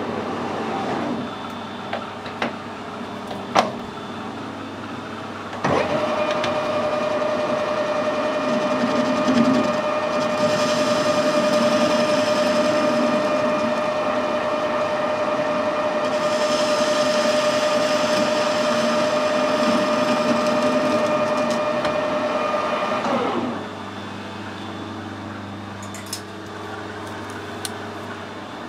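A few knocks, then a metal lathe starts up about six seconds in and runs with a steady gear whine. A hiss of cutting comes in twice as the tool works the spinning steel bar. The lathe spins down with a falling whine about twenty-three seconds in.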